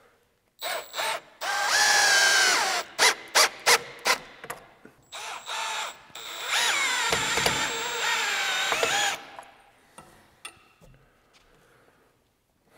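Cordless drill-driver driving pocket-hole screws into a wooden handrail: several short bursts, then two longer runs with the motor pitch wavering.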